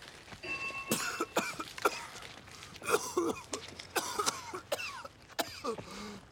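A man coughing and spluttering in short, separate fits, drenched with gasoline from a pump hose.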